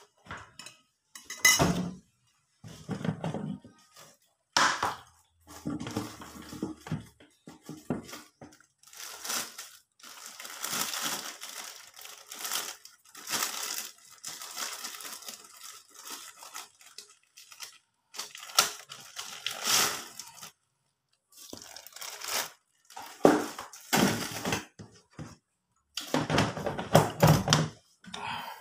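Tableware handled close to the microphone: a plate and spoon clattering in uneven bursts, with rustling and crinkling in between.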